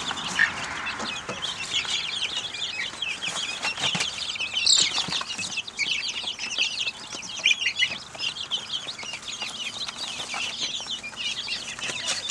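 A brooder full of young chicks of mixed breeds, Silkies, Isa Browns and bantams among them, peeping continuously in many overlapping short, high chirps, with a few soft knocks in between.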